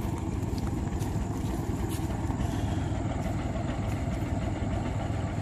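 Boat engine running steadily with an even low rumble.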